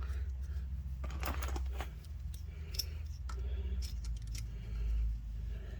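Light, scattered metallic clicks and clinks as a thread tap is worked in a blind stud hole for a helicoil insert, over a low steady hum.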